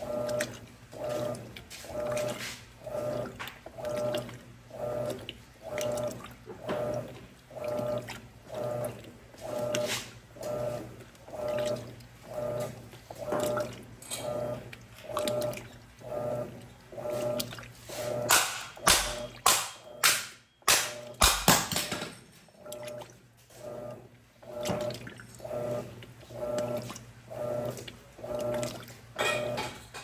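Electrolux top-loading washing machine agitating: the motor hum and the water slosh pulse about once a second as the agitator swings back and forth. About eighteen seconds in, a burst of loud knocks and clicks briefly breaks the rhythm.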